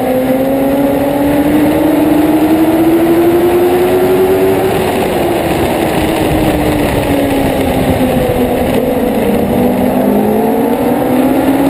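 Dwarf race car's motorcycle engine at racing speed, heard from the car's roof: the engine note climbs for about four seconds, sinks as the driver eases off, and climbs again near the end under acceleration, over a steady rushing noise.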